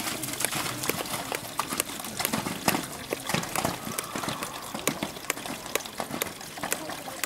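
A horse cantering on a sand arena, its hoofbeats making a string of short, irregular thuds.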